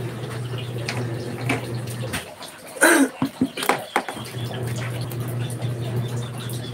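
Twin-tub washing machine running with a steady low hum that stops about two seconds in and starts again about two seconds later. In the pause come water splashes and a few sharp knocks, the loudest of them about three seconds in.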